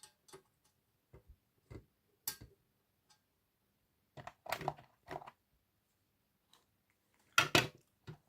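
Small metal screwdriver bits clicking and rattling in short, scattered handling noises as they are swapped in a bit set and tried in a screw head, with the busiest clatter about halfway through and again near the end.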